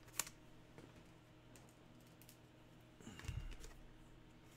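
Faint, scattered light clicks and taps from handling trading cards at a table, with one sharp click right at the start and a soft thump a little after three seconds in.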